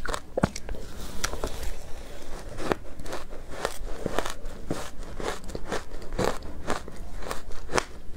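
Crunching of powdery ice coated in matcha green tea powder, bitten off a spoon and chewed close to a clip-on microphone: a quick, irregular run of sharp crackles and crunches.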